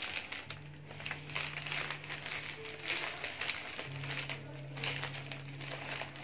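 Sheets of flower-wrapping paper and mesh net crinkling and rustling in irregular bursts as they are folded and bunched around a bouquet.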